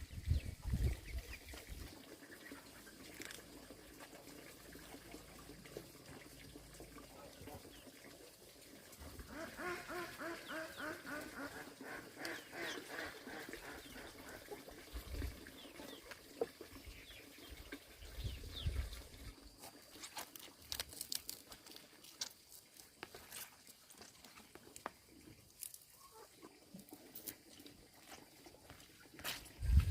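Ducks quacking on and off, with a run of quick repeated calls about ten seconds in, and scattered light clicks and taps later.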